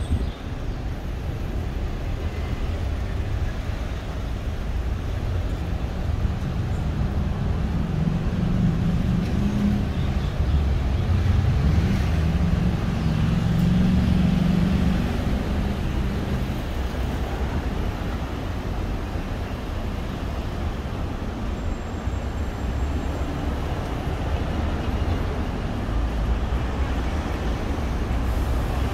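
Road traffic passing close by: car engines and tyre noise. A low engine hum grows louder through the middle, then settles back.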